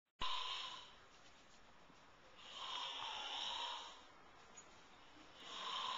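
An old man snoring: airy, hissing snores without a low rumble, in a slow rhythm of about one every two and a half to three seconds, three of them here.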